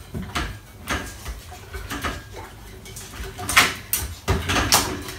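A dog climbing over a pet gate, the gate rattling and clanking in a series of sharp knocks. The loudest clatter comes about three and a half to five seconds in, as the dog goes over the top.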